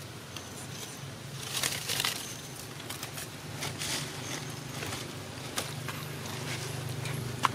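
Dry leaves rustling and crackling in a few short bursts as macaques move on the leaf litter, the loudest about two seconds in, over a steady low hum.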